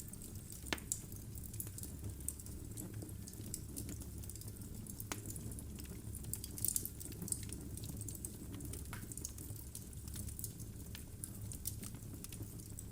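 Wood logs burning in a fireplace: irregular crackles and sharp pops from the firewood, with a small flurry of them about seven seconds in, over a steady low rumble of the flames.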